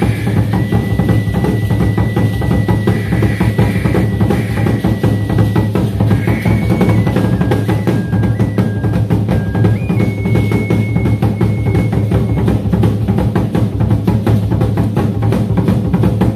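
Background music with a steady drum beat and a high, held melody line that steps between notes.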